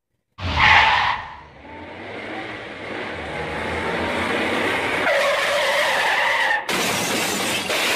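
Sound effect of car tires screeching in a long skid: a loud burst about half a second in, then a held squeal that changes pitch about five seconds in and turns into harsher noise near the end.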